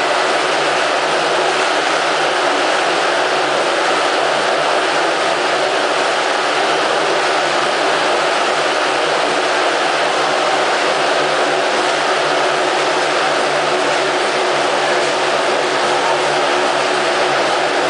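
Several motocross motorcycles riding inside a steel-mesh globe of death, their engines running together as one steady, unbroken drone.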